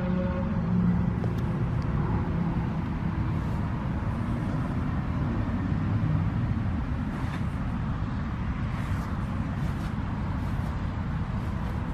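Steady outdoor rumble of road traffic, with a faint engine tone that fades out in the first couple of seconds.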